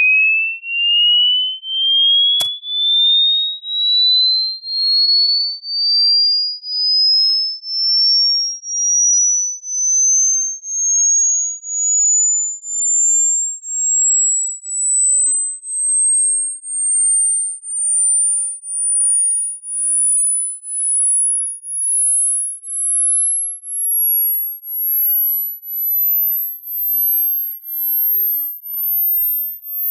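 Pure sine test tone of an ear-age hearing test, rising steadily in pitch from a high whistle to a very thin, very high pitch near the top of human hearing, swelling and fading about once a second. The highest pitch a listener can still hear gauges high-frequency, age-related hearing loss. A brief click about two and a half seconds in.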